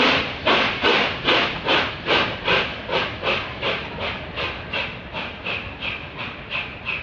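LNER A4 streamlined Pacific steam locomotive pulling out of the station, its chimney giving a steady run of sharp exhaust chuffs about two to two and a half a second. The chuffs quicken slightly and grow gradually fainter as the engine draws away.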